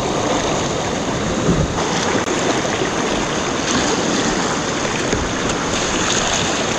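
River rapid: whitewater rushing and churning around a kayak, a steady loud wash of water.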